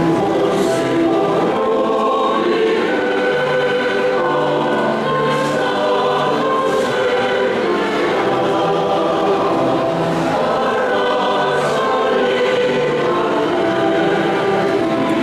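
Mixed choir of women's and men's voices singing a Basque folk song in harmony, with long held chords that change together.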